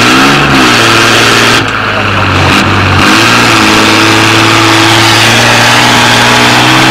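Engine of an off-road trial vehicle revving hard under load as it climbs out of a steep dirt pit. The revs rise near the start and again about three seconds in, then hold high and steady.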